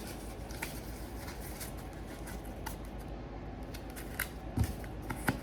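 Light clicks and taps of small hard objects being handled, with a soft low thump about four and a half seconds in and two sharper clicks near the end, over a steady low hum.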